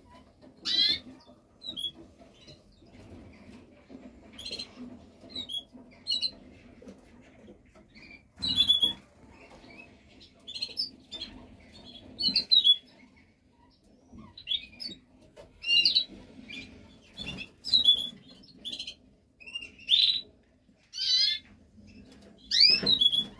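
Canaries giving short chirps and calls, scattered irregularly, with a few louder bursts of wing-fluttering and splashing as they bathe. A faint steady low hum lies underneath.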